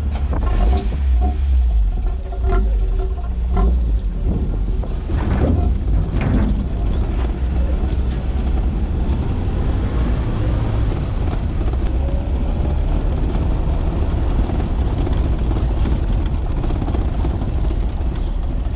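Motor vehicle engine running with a steady low rumble, with a few short pitched tones near the start and a sliding pitch about five to seven seconds in.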